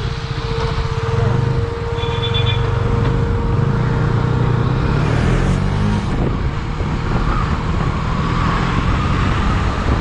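Motorcycle engine running under way, its note rising and falling as the throttle changes, with wind noise over the microphone.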